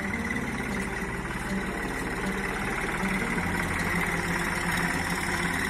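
Diesel engine of a new Massey Ferguson tractor idling steadily.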